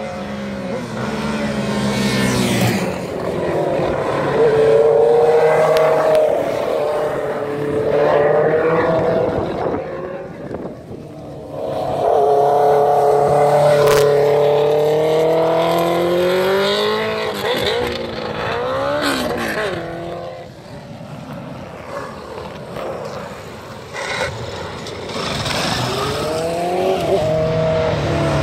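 Sport motorcycles riding through a bend one after another. Each engine note swells as the bike approaches, rises and falls in pitch through the corner, then fades. There are several passes.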